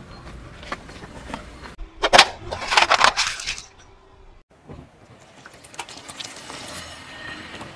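A car tyre rolling over and crushing small objects: a dense burst of crackling and popping about two seconds in, the loudest part, then quieter scattered crackles and clicks.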